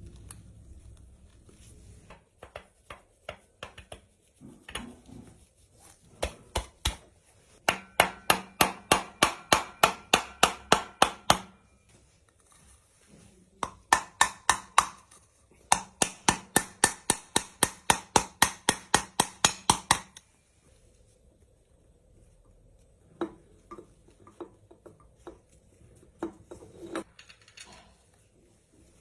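Ratchet wrench clicking in two long, even runs of about four clicks a second, with a few scattered clicks and knocks before and after, as bolts are run down during engine assembly.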